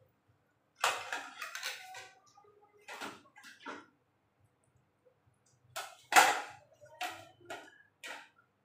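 Metal fork scraping and tapping against a ceramic bowl in short separate strokes as beaten egg is scraped out into the pan, the loudest stroke about six seconds in.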